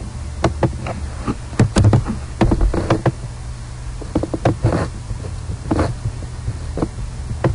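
Irregular clicks and light knocks, a dozen or so scattered unevenly, over a low steady hum.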